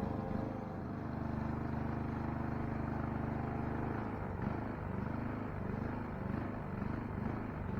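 Saito 304ST model aircraft engine running in flight in a radio-controlled Musashino Hope model airplane. The pitch is steady at first, then swells up and down repeatedly from about halfway through as the plane passes and turns.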